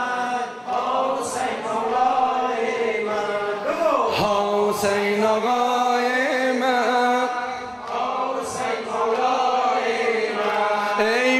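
Male chanting of a slow Shia mourning lament (noha) in Dari, with long held notes.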